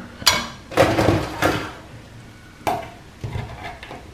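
About half a dozen sharp, unevenly spaced knocks and clatters as crab shell is cracked with a small hammer on a wooden cutting board.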